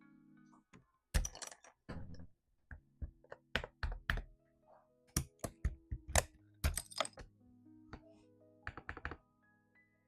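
Irregular clacking keystrokes on an Aula S99 mechanical keyboard, some in quick clusters, over background music with held notes.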